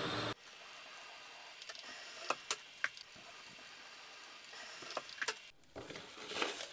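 Milling machine running with a high steady whine, cutting off abruptly about a third of a second in. After that there are only a few faint, sharp metallic clicks.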